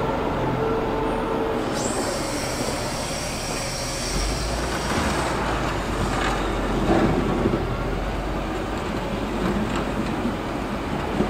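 Wheel loader's diesel engine running steadily while plowing snow. A high metallic squeal lasts about three seconds, starting about two seconds in, and there are a couple of knocks later on.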